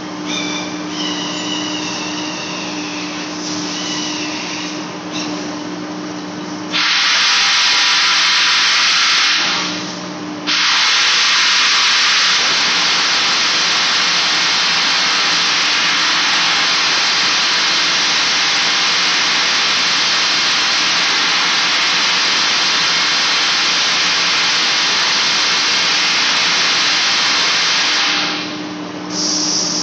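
Large lathe running with a steady hum as it turns a big steel flange for facing. About seven seconds in, a loud steady hiss starts over it, breaks off briefly, then carries on until near the end.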